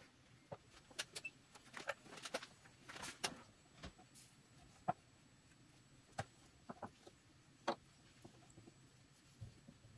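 Scattered light clicks and taps from small tools, wires and electronic parts being handled, several in quick succession in the first few seconds, then a handful of single clicks.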